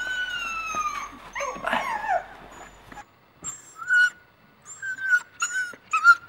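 A dog whining: long, slowly falling whines, then after about three seconds a string of short, high yips and whimpers.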